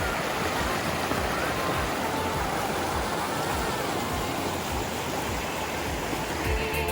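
Rushing mountain-stream water, a steady even rush with no beat or rhythm.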